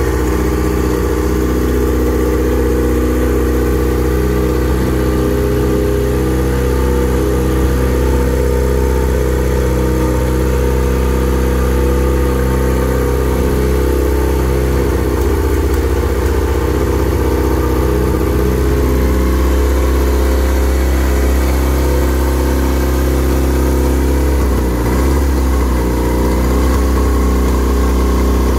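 Viking 130, a Honda-based four-cylinder aircraft engine, idling steadily at one speed, with a brief waver about halfway through and again near the end.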